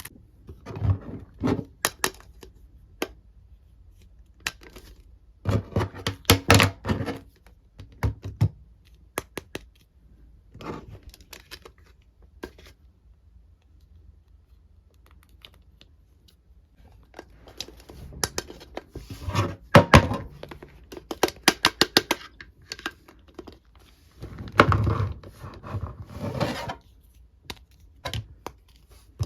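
Hands handling plastic Mrs. Potato Head toy parts and a foam squishy: bursts of sharp plastic clicks, knocks and rustling, with quiet pauses between them.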